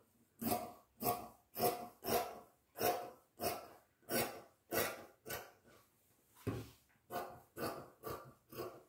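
Large tailor's scissors cutting through cloth: a run of short snips, about one and a half a second, with a brief pause partway through.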